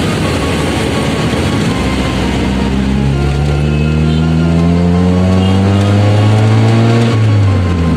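Car engine heard from inside the cabin, pulling and rising steadily in pitch for several seconds, then falling back near the end at a gear change. Under it is a steady hiss of rain and tyres on a wet road.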